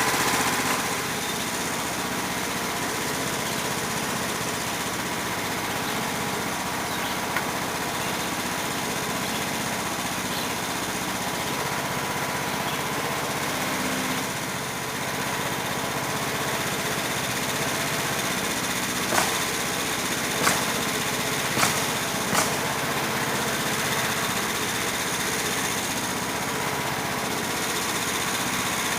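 Small gasoline engine of a sawmill running steadily while milling maple into planks. Four sharp clicks come close together about two-thirds of the way through.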